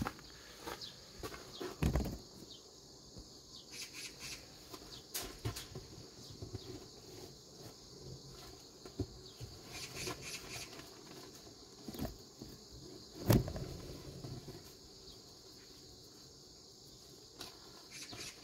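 Scattered knocks, scrapes and rustles of beehive handling as the bottom board is worked out of a foam hive, the loudest a sharp thump about thirteen seconds in. A steady high chirring of insects runs underneath.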